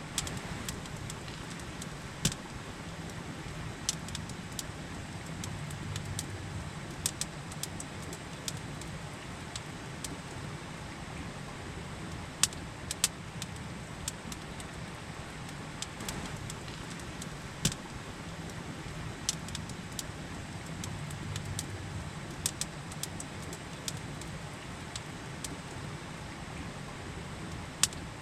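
Campfire crackling, with sharp irregular pops and snaps, a few of them louder, over the steady rush of a river.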